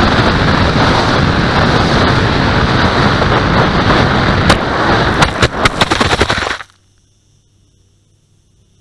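Loud, steady wind rush over a model aircraft's onboard camera as it flies low. About four and a half seconds in comes a rapid run of sharp knocks and rattles as the aircraft hits the ground and skids, and the sound drops suddenly to quiet once it comes to rest.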